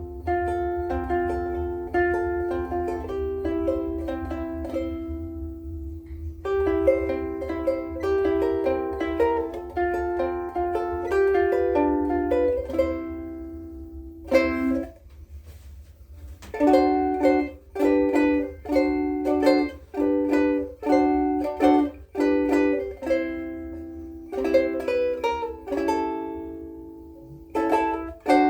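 Blue Wing #3 soprano ukulele strung with Aquila Bblacks strings, played solo: picked notes and ringing chords for the first half. After a short pause, the playing turns to rhythmic strummed chords in short, clipped strokes from about halfway through.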